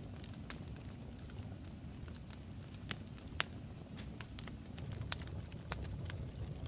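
Crackling fire: irregular sharp pops and snaps over a low steady rumble.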